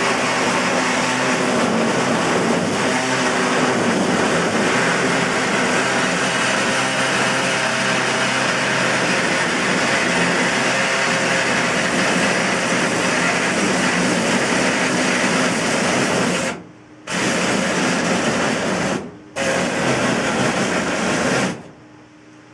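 Handheld power tool cutting the truck's sheet-metal wall, running steadily with a motor hum under a loud metal-cutting hiss. It pauses briefly twice near the end, then stops.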